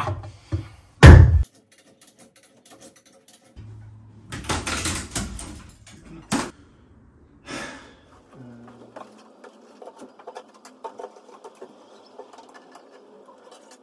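A hard hammer blow on metal about a second in, followed by a scraping, knocking stretch with a sharp knock, then a low steady hum with light clicking.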